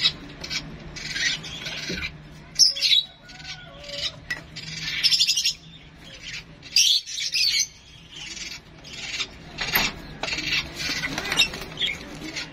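Young Java sparrow chirping repeatedly in short, rough, high calls, one after another, with a faint steady hum behind.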